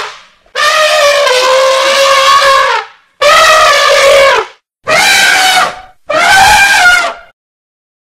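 An angry elephant trumpeting loudly: four calls, the first about two and a half seconds long, the other three about a second each, with short silent gaps between them.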